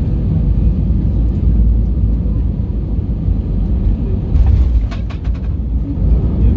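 Airbus A320 cabin noise during the landing: a steady low rumble of engines and airflow, then about four and a half seconds in the touchdown, a run of thumps and rattles as the main gear strikes the runway. It is a hard landing.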